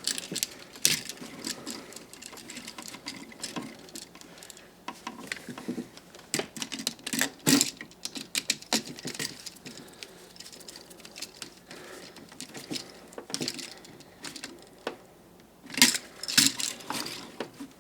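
Irregular small clicks and light metallic ticks of hands working an electrical outlet: wires pushed into its back-wire holes and the terminal screws tightened, with a denser run of clicks near the end.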